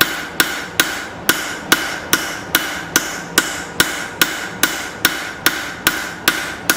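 Blacksmith's hammer striking a hot steel knife blade on an anvil, drawing the blade out thinner: a steady run of about sixteen even blows, roughly two and a half a second, each with a short metallic ring.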